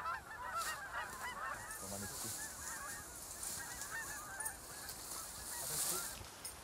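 A flock of Canada geese honking, many calls overlapping, thinning out after about three seconds. A rushing hiss swells briefly near the end.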